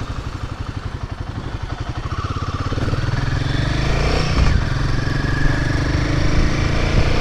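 Royal Enfield Himalayan 450's 452 cc single-cylinder engine pulling away onto the road, its separate firing pulses giving way to a steadier, louder run as the bike picks up speed over the first few seconds.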